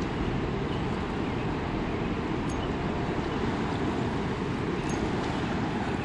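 Steady rushing of the fast river current and wind on the microphone, heaviest in the low end, with no distinct events.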